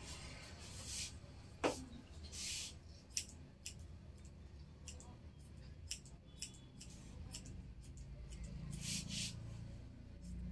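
Hair-cutting scissors snipping through long hair during a light trim of the ends: a string of short, faint, crisp snips at irregular intervals.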